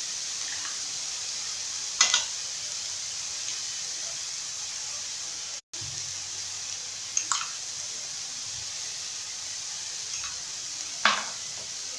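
Shawarma meat frying in oil in a pan, a steady sizzle. A metal spoon clinks against a small glass of sauce about two seconds in, again about seven seconds in and once near the end.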